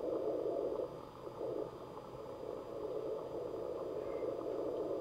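Receiver audio from an Icom IC-7300 in CW mode on the 40-metre band, fed by a loop antenna laid very close to the ground: a steady hiss of band noise squeezed into the narrow CW filter's passband, with a very faint Morse code tone coming and going in it. Still noisy, but the faint signal is readable on the loop.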